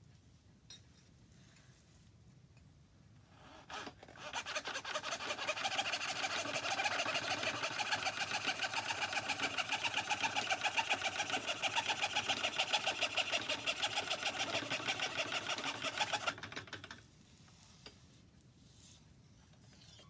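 Treadle fretsaw cutting through stacked pear-wood plywood fret panels along their join line. The blade's rapid, even up-and-down strokes start about four seconds in, run steadily for roughly twelve seconds, and stop a few seconds before the end.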